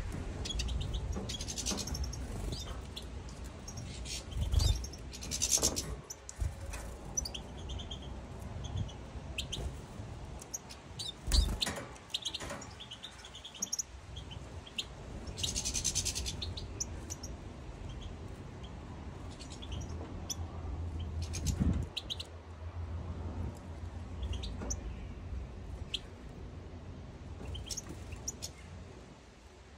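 European goldfinches chirping and twittering in a cage: many short scattered calls. A few brief louder thumps, the loudest about eleven seconds in.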